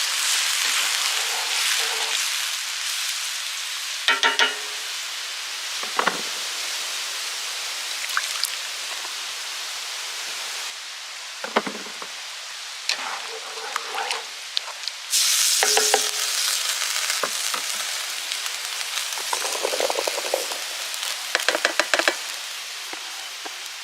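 Chicken hearts and onions sizzling in a pan over a wood fire, a steady hiss that swells now and then, with occasional knocks and short metallic clinks against the pan.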